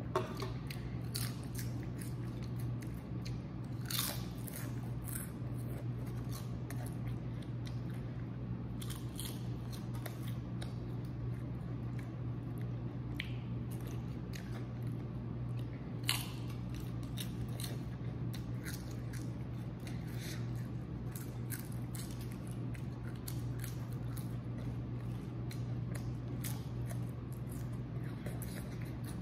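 A boy eating lemon-seasoned potato chips: crisp crunches as he bites and chews, coming at irregular intervals, the sharpest about four and sixteen seconds in. A steady low hum runs underneath.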